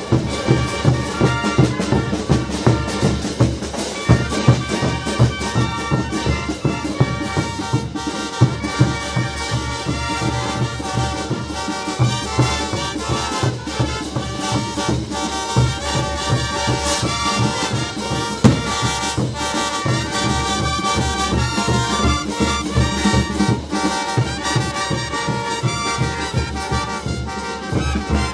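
Brass band of trumpets, saxophones, bass drums and cymbals playing dance music with a steady drum beat.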